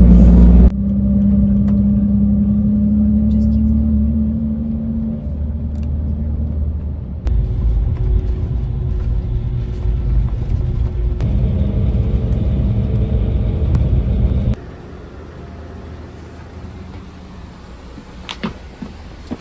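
Coach engine and road rumble heard from inside the bus, a steady low drone with an engine hum. It comes in several short clips spliced together, and turns quieter from about fifteen seconds in.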